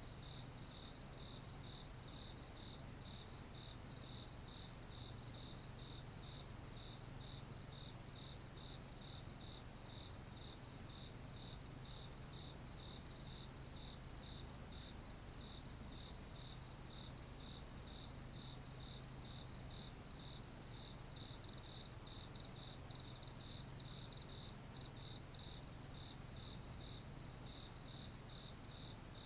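Insects chirping: a faint, high-pitched, fast and even pulse that keeps going throughout, growing louder for a few seconds past the middle.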